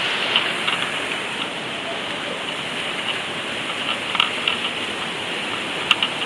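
Waterfall rushing, a steady even roar of falling water, with a few faint clicks near the end.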